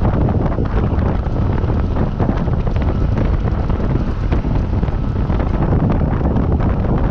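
Wind rushing and buffeting over the microphone of a moving vehicle: a steady, loud, low rumbling noise that covers any engine sound.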